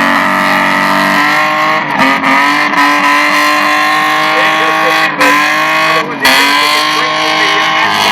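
VL Commodore's six-cylinder engine held at high revs through a burnout, over the hiss of spinning tyres. The revs dip sharply and climb straight back three times: about two, five and six seconds in.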